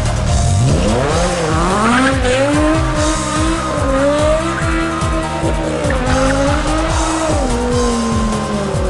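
BMW E60's exhaust as the engine revs: the note climbs quickly over the first two seconds, holds high with small rises and falls, then drops about seven seconds in and eases down. Background music plays underneath.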